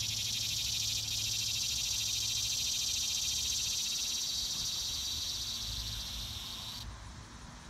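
A cicada's loud, rapidly pulsing buzz that swells and then cuts off suddenly near the end, with a faint low rumble underneath.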